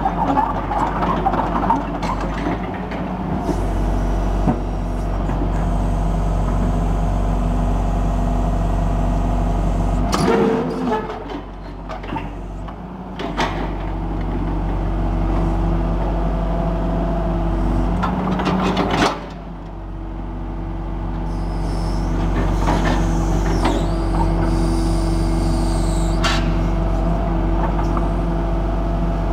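Hitachi EX135 UR-5 crawler excavator's diesel engine running steadily. Twice the engine note drops and then picks back up, and a few sharp clanks are heard.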